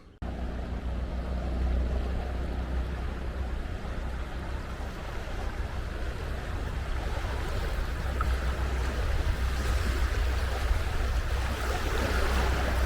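A steady low rumble under a wash of moving water, getting slightly louder toward the end.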